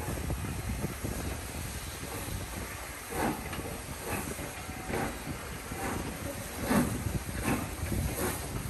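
Steam locomotive pulling a train of coaches away under power: its exhaust chuffing in slow beats a little under a second apart over a steady hiss and low rumble.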